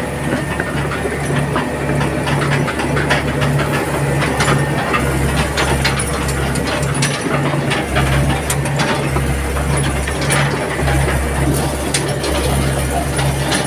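Crawler excavator travelling, heard from inside its cab: the diesel engine's low drone pulses about twice a second under a deeper rumble, with steady clanking and rattling from the steel tracks and the cab.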